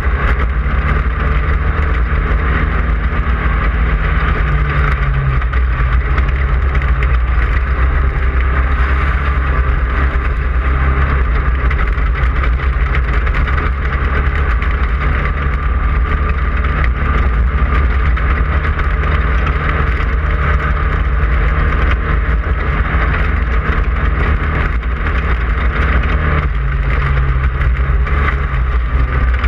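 Onboard sound of a Class 5/1600 desert race car at speed: its 1600 cc air-cooled VW flat-four runs hard and steady, loud, over a heavy low rumble. The engine note shifts a little about five seconds in and again near the end.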